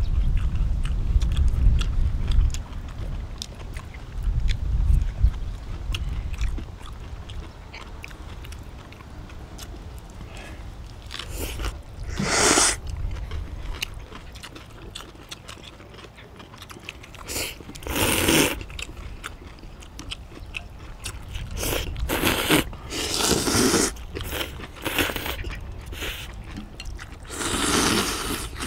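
People eating noodles and fresh kimchi: small chewing and crunching sounds, then about six loud, short slurps from about twelve seconds in. A low rumble fills the first few seconds.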